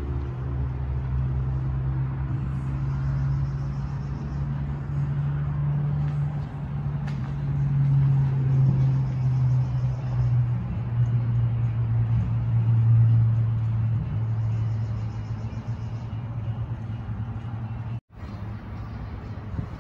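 A steady low motor hum that drifts slightly in pitch and swells twice in the middle.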